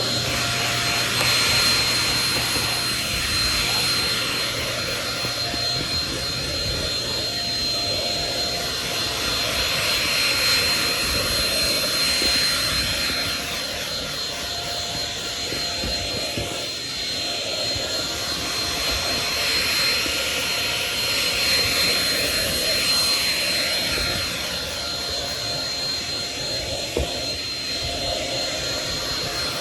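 Shark Rocket vacuum cleaner running steadily with a thin high whine over its rushing airflow, the level swelling and easing a little as it is worked over carpeted stair risers.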